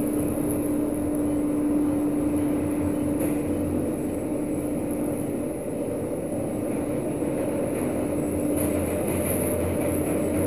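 Steady machine hum and rumble from the shaft of a Schindler MRL 3300 traction lift, heard from on top of the car, with a steady mid-pitched drone over it that fades away near the end.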